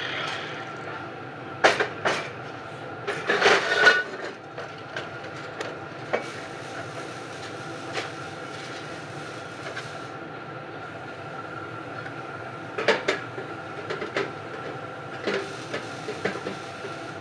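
Large sheet-metal muffler shell clanking and rattling as it is handled on a metal workbench: irregular hollow metallic knocks, a cluster about two to four seconds in and more near the end, over a steady shop machine hum.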